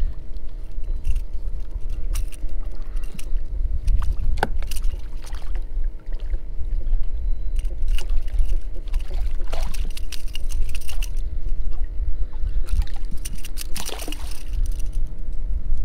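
Choppy water lapping and splashing against a kayak's hull, with a low wind rumble on the microphone and a faint steady hum underneath.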